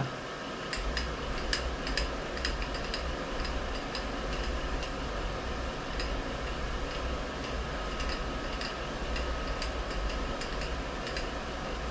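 Brown & Sharpe milling machine being adjusted by hand: irregular light metallic clicks and ticks over a steady low hum that comes in about a second in.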